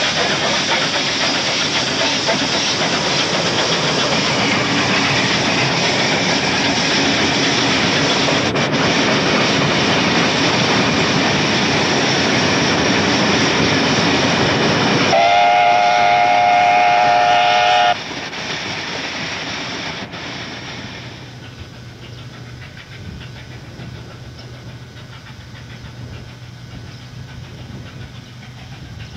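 Steam locomotive 3801, a NSWGR C38 class Pacific, hauling a passenger train past at speed: a loud, steady rush of running noise. Then its steam whistle sounds for about three seconds as a chord of several tones and cuts off suddenly. After that the train is heard much fainter as it draws away.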